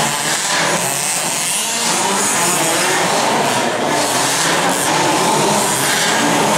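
Several large-scale RC cars' small two-stroke petrol engines buzzing together around a dirt track, their pitches rising and falling as they accelerate and brake.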